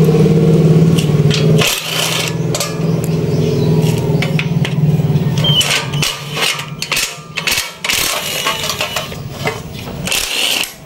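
Cordless impact wrench running and hammering as it undoes bolts on a small gasoline engine's blower housing, a steady buzz for about the first five seconds. Then clicks and clanks of the socket and metal parts being handled, with another short burst from the wrench near the end.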